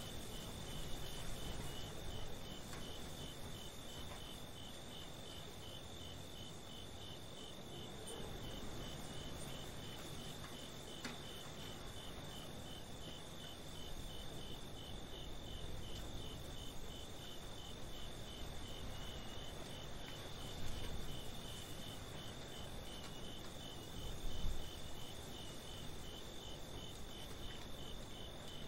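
Crickets chirping steadily in an even, rapid rhythm of about two or three chirps a second, over a low rumble that swells briefly a few times.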